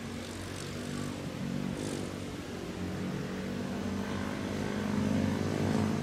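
JR East E353 series electric limited express train approaching, a steady mechanical hum from its running gear that grows louder near the end as it comes close.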